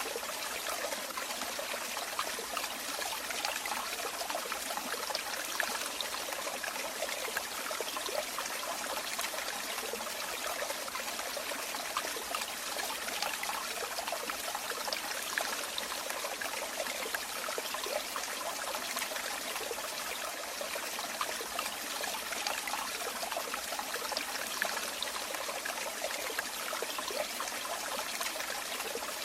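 Running water trickling and splashing steadily, a stream or small fall of water with fine splashes.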